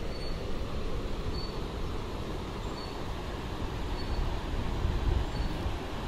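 Wind buffeting the phone's microphone: a steady low rumble with irregular gusts, strongest about five seconds in. A faint short high chirp repeats about every second and a quarter.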